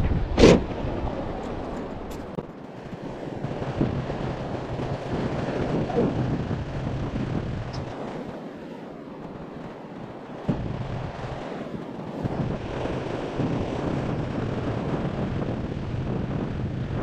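Wind buffeting the microphone over distant surf, with one loud thump about half a second in as the side-hinged rear door of a Toyota SUV is shut.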